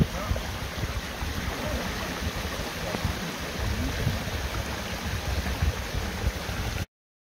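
Shallow stream running over rocks and a small weir: a steady rushing babble with an uneven low rumble underneath. It cuts off suddenly near the end.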